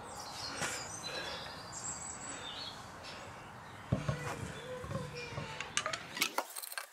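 Small birds chirping. A few sharp clicks and knocks come in the second half, and the sound cuts off suddenly at the end.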